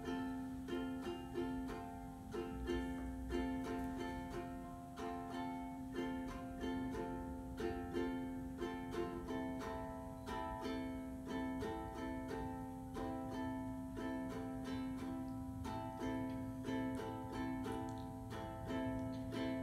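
Ukulele strummed in a steady, even rhythm over a held harmonium drone.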